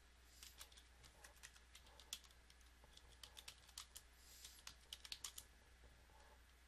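Faint typing on a computer keyboard: irregular keystrokes in short runs with pauses between, over a steady low electrical hum.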